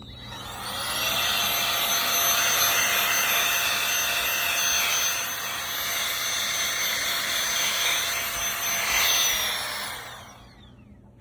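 Electric air blower blowing dust off computer parts: its motor spins up within about a second, runs steadily with a rushing hiss and a high whine for about nine seconds, then spins down near the end.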